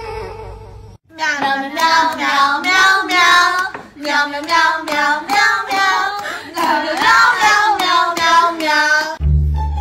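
A brief pitched cat cry in the first second, then a child singing a song in three long phrases.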